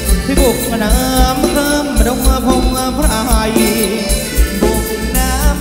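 Live Thai ramwong band music in an instrumental stretch: a melodic lead line with sliding notes over a steady drum beat.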